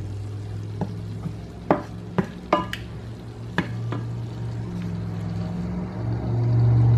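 Wooden spoon stirring melting butter and diced onions in a non-stick frying pan, with several knocks and scrapes against the pan. A low steady hum runs underneath and grows louder near the end.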